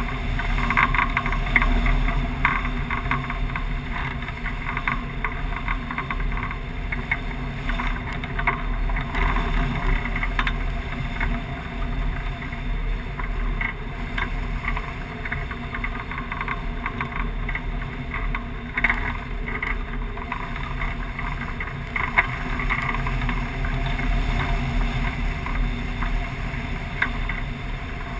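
Steady rush of wind over a wing-mounted camera on a soaring tandem hang glider, buffeting the microphone, with no engine.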